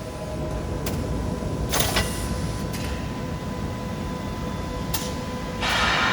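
Automated conveyor-roller production machinery running: a steady hum with a faint held tone, several sharp clicks, and a louder hiss that starts about five and a half seconds in.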